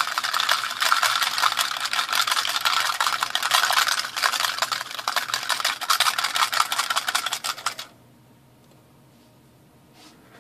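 Small metal battery terminals rattling against each other and a plastic tub as it is swirled by hand in an alcohol rinse, a dense fast rattle that stops abruptly about eight seconds in. The stirring cleans oily contamination off the terminals before chemical tinning.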